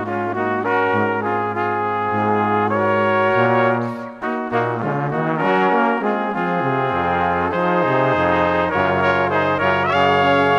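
Background music of brass instruments playing sustained chords over a moving bass line.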